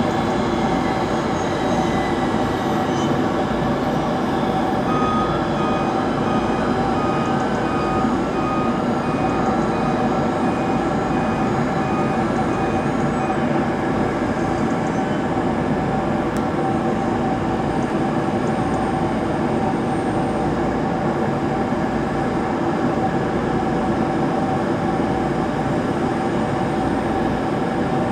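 Embraer E195-E2 airliner's Pratt & Whitney PW1900G geared turbofan engines running steadily: a continuous hum and whine, with a few faint high tones sliding slightly downward in the first seconds.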